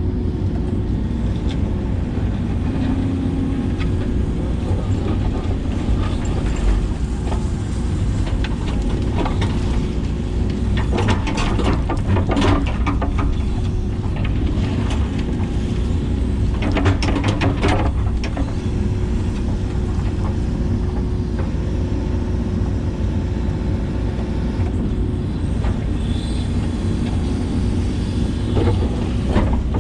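Hitachi 130LCN hydraulic excavator's diesel engine and hydraulics running steadily under digging load, with a steady whine over the engine drone. Three short spells of clattering break in: one around a third of the way in, one just past halfway, and one at the end.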